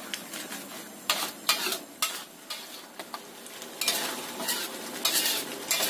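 Sambal chili paste sizzling in hot oil in a pan while it is stirred, the utensil scraping across the pan in irregular strokes over a steady frying hiss. The seasonings have just gone in and the paste is being stir-fried until mixed.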